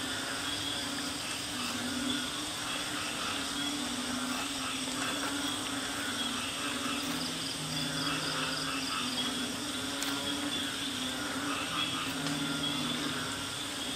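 Night chorus of frogs and insects: steady high insect trilling over repeated low frog calls, with two longer, lower calls about halfway through and near the end.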